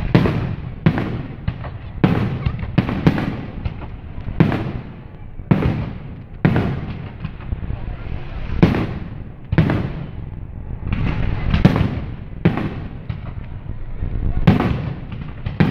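Aerial firework shells bursting in an irregular series of sharp bangs, about one a second and sometimes two in quick succession, each trailed by a rumble, with a low rumble running between them.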